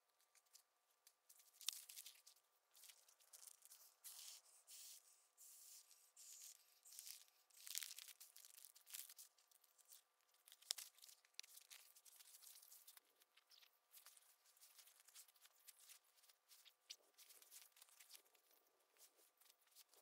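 Faint, irregular rustling and crinkling of nylon camping gear as an inflated sleeping pad is handled and slid into a sleeping bag in a tent, with a few sharper crinkles. A faint steady hum sits underneath.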